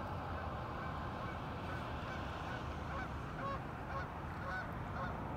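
Domestic geese honking, a run of short calls starting about two seconds in, over a steady low rumble.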